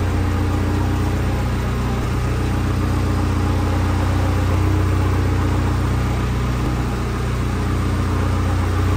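The freshly rebuilt four-cylinder engine of a Vanderhall Venice GTS running steadily at low revs, a deep even hum with no revving, while the transmission is tried for a first short creep in the garage.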